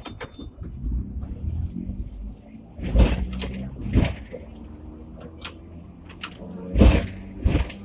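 Hong Kong electric tram under way, heard from the driver's cab: a steady low rumble and motor hum, broken by four sharp clunks, two near the middle and two near the end.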